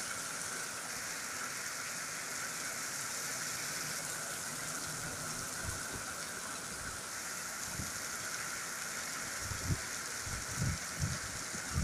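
Heavy cloudburst rain pouring onto paving, a steady dense hiss. A few short low thuds come in the second half.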